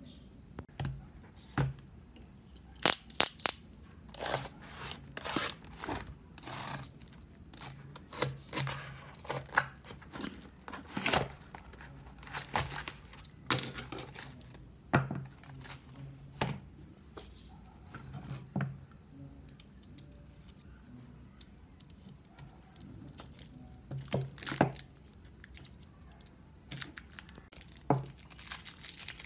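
A cardboard parcel sealed with clear packing tape being torn open by hand: irregular ripping of cardboard and tape and crinkling of plastic wrapping, in short bursts, with a quieter lull about two-thirds of the way through.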